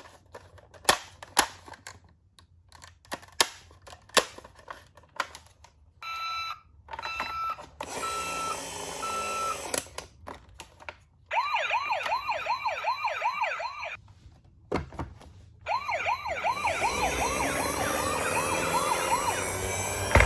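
Toy ambulance's electronic siren. It gives a fast up-and-down wail in two runs, the second with a rising hiss under it near the end. Before it come a few sharp plastic clicks and a short run of repeated beeps.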